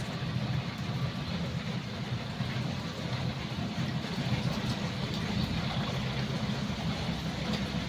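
Diesel locomotive engine running steadily, a low even hum under a wash of noise.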